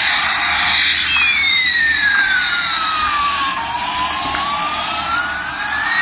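Toy Airbus A380's electronic jet-engine sound effect from its small built-in speaker: a steady, loud hiss with a whistling tone that slides down and then back up over several seconds.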